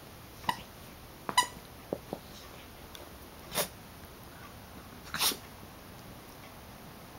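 Siberian husky puppy chewing a squeaky plush toy: two short, high squeaks in the first second and a half, a couple of soft knocks, then two short huffs of breath.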